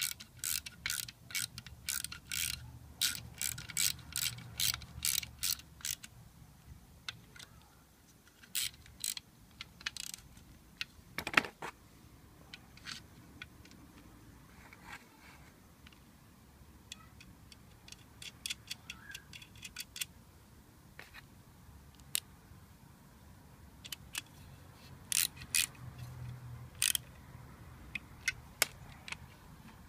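Hand socket ratchet clicking as its pawl slips on the back-stroke, tightening nuts on a car alternator; a quick run of clicks for the first six seconds, then scattered clicks and a single sharp knock about eleven seconds in, with another few clicks near the end.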